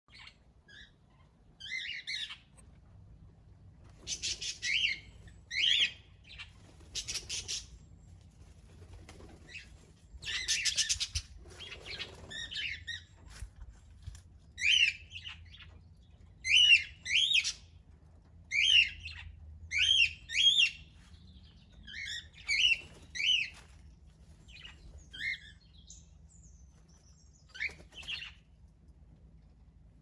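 Small aviary parrots calling: a string of short, sharp chirps, mostly one at a time and a second or two apart, with a few bursts of wing flapping in the first half.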